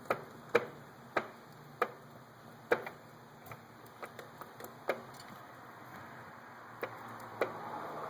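Drive chain of a 2006 Yamaha R1 motorcycle making sharp ticks at irregular intervals, some loud and some faint. This is the ticking chain noise the owner is recording.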